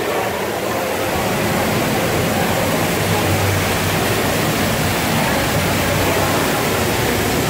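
Steady, even rushing noise, with faint crowd chatter beneath it.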